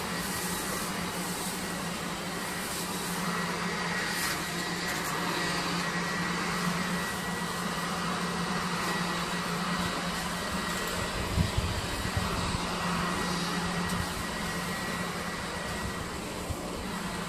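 Steady engine drone of outdoor yard-work machinery, with a constant low hum and a thin high whine; a deeper rumble comes in about eleven seconds in.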